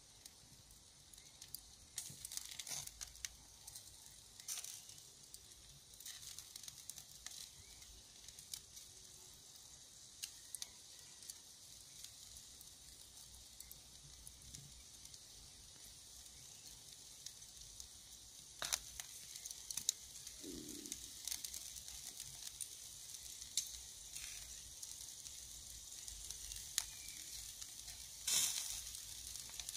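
Skewers of bacon-wrapped meat sizzling faintly in a wire grill basket over charcoal embers, with scattered sharp pops and crackles as fat drips onto the coals, and one louder pop near the end.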